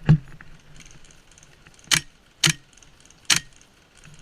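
Airsoft gun firing single shots: four sharp cracks at uneven intervals, one right at the start and three in the second half.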